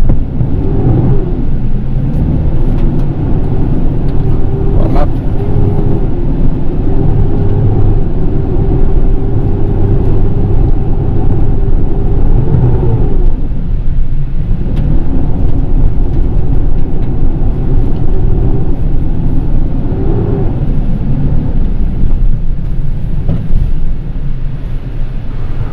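Mitsubishi Triton pickup's diesel engine heard from inside the cab while it is driven hard over an off-road track. The engine note climbs and holds, drops away about halfway through as the throttle is lifted, then picks up again, over a heavy low rumble.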